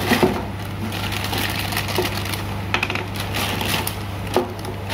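Plastic packaging bag being snipped with scissors and crinkled as a white ABS plastic sink tap is pulled out and handled, with scattered clicks and light knocks of plastic. A steady low hum runs underneath.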